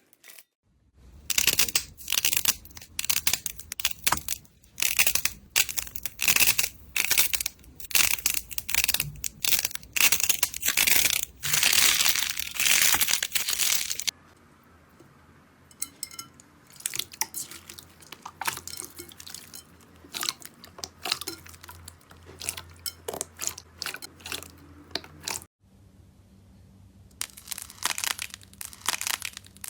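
Crunchy slime being squeezed and pressed by hand, crackling and popping: dense and loud in the first half, then softer, sparser crackles after an abrupt change about halfway through.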